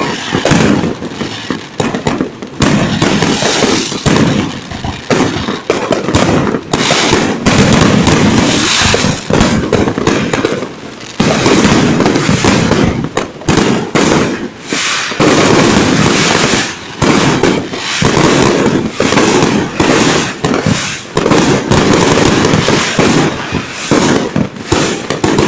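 Fireworks going off in rapid succession: a dense run of loud, overlapping bangs and crackles.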